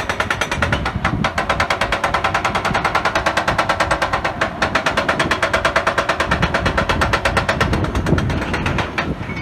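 Excavator-mounted hydraulic breaker hammering hard rock in rapid, even blows, with the excavator's engine running under it; the hammering stops near the end. The rock is resisting, not cracking or splitting off under the chisel.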